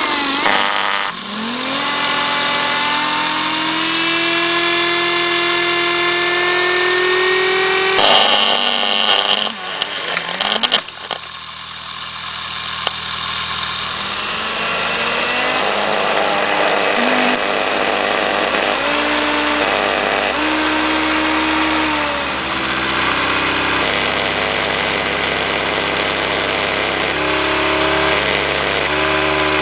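Small brushed DC motor overvolted, running with a high whine that rises in pitch as it speeds up. About eight seconds in the sound turns harsh and rough for a few seconds, then cuts out. A second small motor then runs, its whine stepping up and down in pitch as the power changes.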